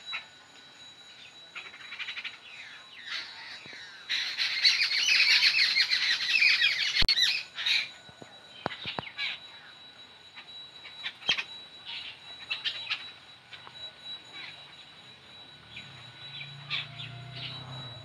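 Birds squawking: a loud burst of harsh chattering calls a few seconds in, lasting about three seconds, then scattered single squawks.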